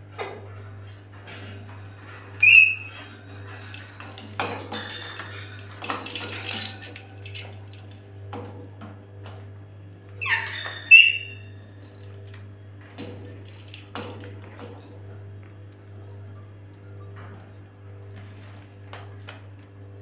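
Rainbow lorikeet in a wire cage giving two short, sharp screeching calls, about two and a half seconds in and again about ten and a half seconds in. Around them come scattered clicks and metallic clinks from the cage as the bird moves about, with a longer stretch of rattling from about four to seven seconds in.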